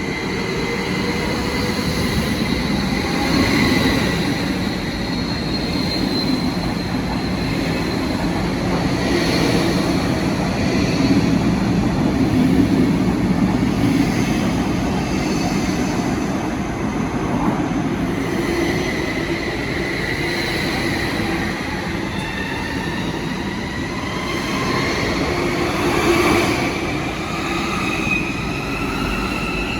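Train running on the tracks with a steady low rumble and high wheel squeal whose pitch drifts up and down, rising near the end.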